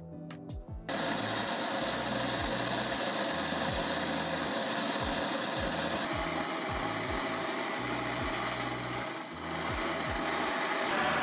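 Steady hissing roar of a gas torch flame, starting about a second in, heating a homemade steel countersink cutter toward red heat for hardening.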